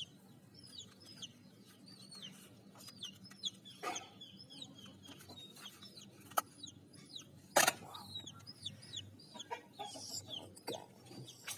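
Small birds chirping over and over in short, high, hooked notes, with a few sharp knocks in between, the loudest a little past the middle.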